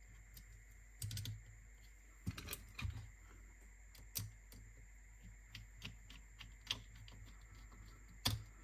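Light, irregular clicks and taps of small parts and tools being handled while a cassette deck's mechanism is reassembled. A small cluster comes about a second in, and the loudest click comes near the end.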